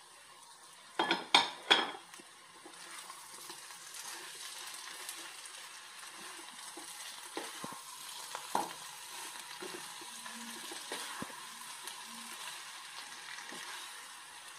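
Chicken pieces in a thick masala sizzling in a non-stick frying pan while being stirred and turned with a wooden spatula, with small scrapes and ticks. About a second in there are three loud clatters of cookware.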